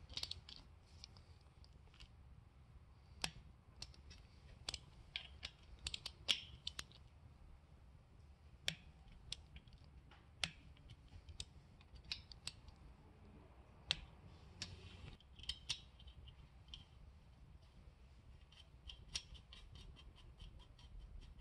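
Faint, irregular metallic clicks and taps of hand tools, a socket, extension and ratchet being fitted and worked on differential cover bolts, with a few quick runs of clicks.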